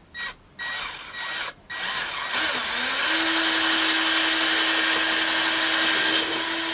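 Power drill boring a hole to mount a window blind: a few short trigger pulses, then one long steady run at constant speed that stops near the end.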